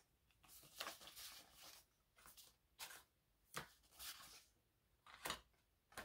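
Paper prop-money bills being handled and sorted by hand: a string of faint, short, crisp rustles and flicks of paper, about one every half second to a second.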